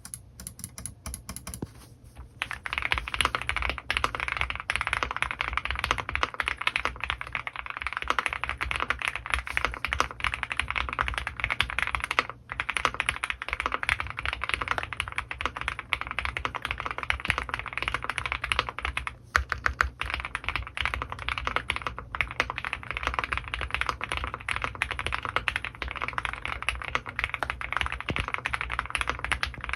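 Custom mechanical keyboard with lubed Gateron Ink Black V2 linear switches and GMK keycaps being typed on: a few separate keystrokes at first, then fast continuous typing with two brief pauses.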